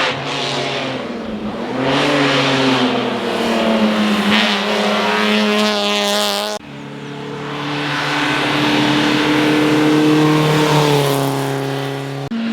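Hill-climb race car engines running hard at high revs, their pitch stepping and gliding with gear changes and throttle. The sound breaks off abruptly about halfway through and again near the end, each time picking up with a different engine note.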